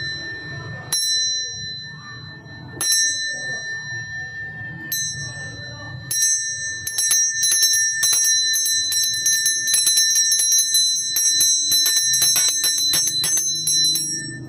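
Solid brass door or gate bell rung by its clapper, worked from the hanging chain, with a bright, high ring. At first a few single strokes come a second or two apart, the ring dying away between them. Then from about halfway rapid ringing follows, several strokes a second, and it stops shortly before the end.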